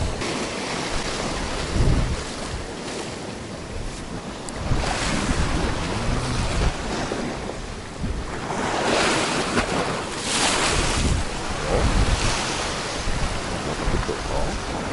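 Sea waves washing and breaking against the shore rocks, with gusts of wind buffeting the microphone. The surf surges louder a little past the middle.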